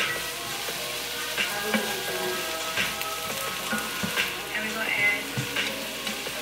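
Diced bell peppers sizzling in a nonstick frying pan, stirred with a slotted spatula that scrapes and knocks against the pan several times.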